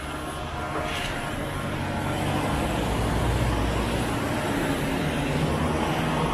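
Road traffic: a motor vehicle's engine and tyres with a low rumble, growing louder over the first few seconds as it draws near, then holding.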